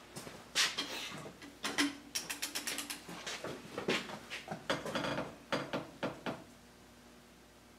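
Ratchet clicking in quick runs, mixed with metal clanks and knocks from heavy hand tools being worked on a hydraulic cylinder. It stops about six seconds in.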